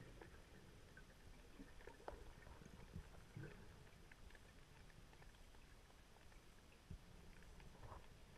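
Near silence underwater, heard through a camera housing: a faint low rumble with scattered small clicks and a few soft knocks.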